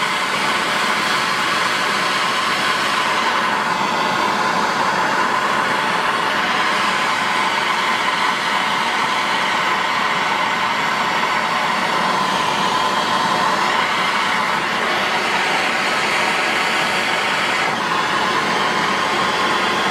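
Handheld gas torch flame hissing steadily as it heats an aluminum tank for brazing with aluminum rod.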